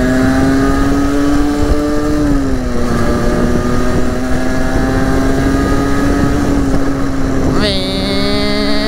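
A Derbi 50cc two-stroke single-cylinder motorcycle engine pulls along under way with a high, buzzing note. Its revs climb, dip at a gear change about two seconds in, then hold fairly steady. Near the end the revs jump sharply to a shriller whine.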